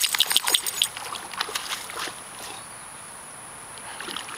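A dog splashing through shallow lake water: a quick run of splashes over the first couple of seconds, then only a few small splashes as it noses at a floating ball.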